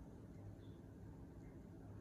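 Near silence: room tone with a low steady hum and a few faint, short high chirps.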